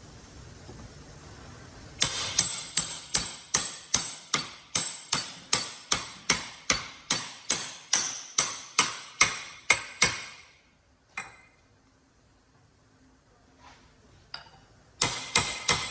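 Hammer tapping a fitting tool to drive steel sealing caps into a truck disc brake caliper housing, sharp metallic ringing strikes at about three a second. About twenty strikes in a steady run stop about ten seconds in, one more follows, and a new run of strikes starts near the end.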